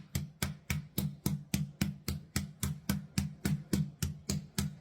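Chicken breasts being pounded flat between sheets of plastic wrap: a steady run of heavy thuds, about four a second.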